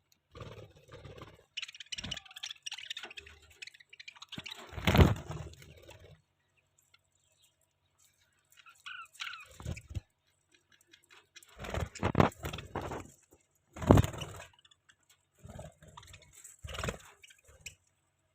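Budgies feeding on seed: irregular pecking, beak clicks and crunching as they crack the seed, with scrapes and a few louder knocks against the dish. A couple of short chirps come about nine seconds in.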